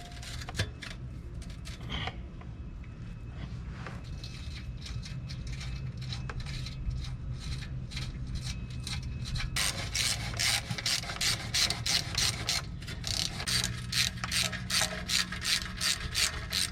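Hand ratchet clicking in quick strokes as bolts are run in, at about three to four clicks a second from about ten seconds in. Before that there is light handling clatter and rubbing over a low steady hum.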